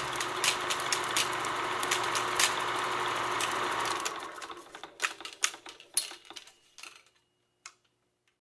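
Film projector running with crackles and pops from the film, fading out about four seconds in. A few scattered clicks follow, then silence.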